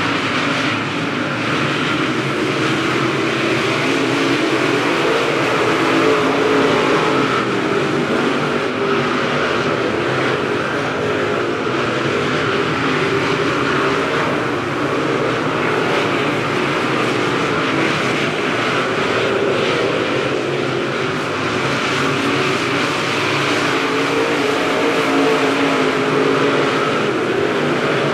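Dirt late model race cars running laps on a dirt oval, their V8 engines making a steady, continuous sound with no single pass standing out.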